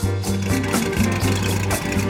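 Music with a steady beat, about two drum hits a second over sustained bass notes.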